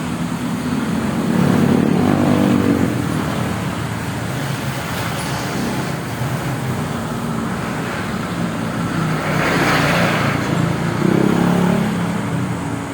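Motor vehicles passing by, with engines swelling and fading: one about two seconds in, a louder one near ten seconds, and another just after.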